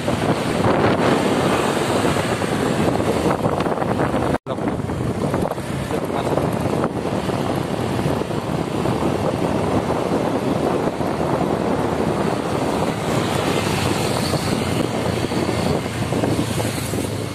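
Wind rushing over the microphone of a moving motorcycle, with road and traffic noise beneath it; a brief dropout about four seconds in.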